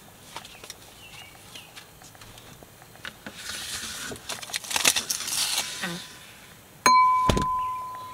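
Rustling and clunks as a chest cooler is opened and a frosted glass is taken out, then the glass is struck with a sharp ding that rings on for about a second, followed right after by a heavier thump.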